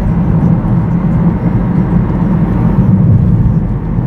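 Steady rumble of a car's engine and tyres on a wet road, heard from inside the moving car.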